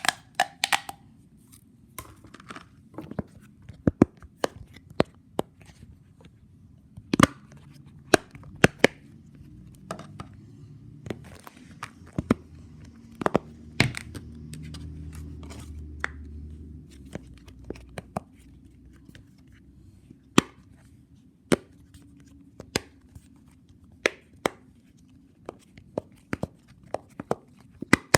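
Plastic fidget toys being clicked and snapped by hand: irregular sharp clicks, a few every second, some much louder than others.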